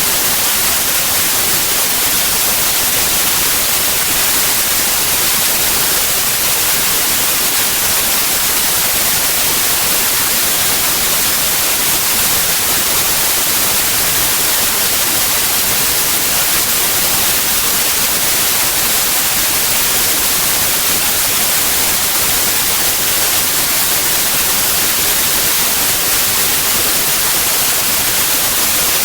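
Continuous white noise: a steady, loud, even hiss that never changes.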